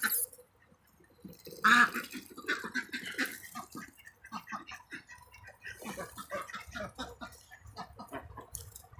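A flock of domestic ducks feeding: one loud short call about two seconds in, then a steady patter of soft, irregular clicks and dabbling as bills work through the leaves and the shallow water of a plastic pool.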